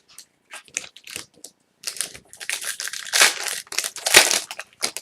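A trading card pack's wrapper being torn open and crinkled by hand: a run of irregular crackling and rustling that grows busier in the middle and stops just before the end.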